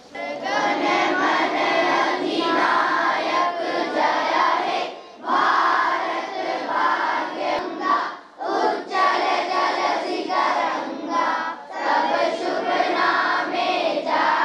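A large group of schoolchildren singing together in unison, in phrases a few seconds long with brief breaks between them.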